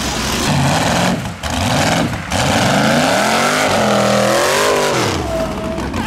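Vehicle engine revved hard for a burnout. Its pitch climbs over a couple of seconds, holds, then drops back near the end.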